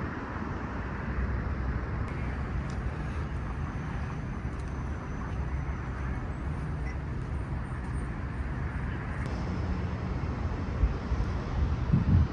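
Steady low outdoor rumble, with a few louder low thumps near the end.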